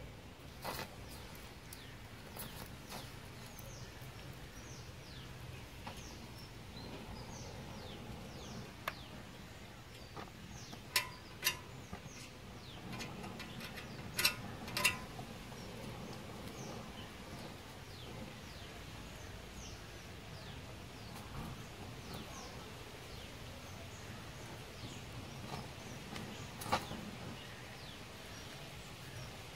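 Gas welding torch flame burning with a low steady rush while small birds chirp over it in short falling notes. A few sharp clicks stand out, two pairs about half a second apart near the middle and one more near the end.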